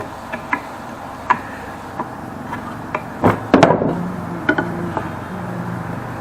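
Scattered light knocks and taps of hand tools on wood, with a louder clattering knock about three and a half seconds in. A low steady hum follows it.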